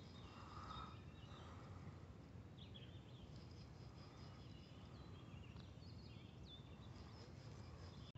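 Near silence: faint outdoor ambience with distant birds calling now and then in short high chirps.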